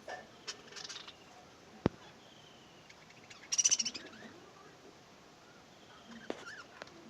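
Pet parrot giving scattered short chirps and calls, the loudest a harsh squawk about three and a half seconds in. A single sharp click a little before two seconds.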